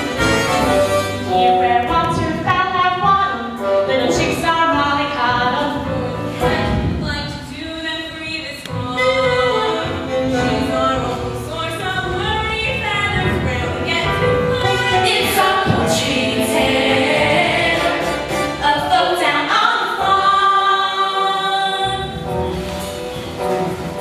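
A chorus of voices singing a musical-theatre number with instrumental accompaniment.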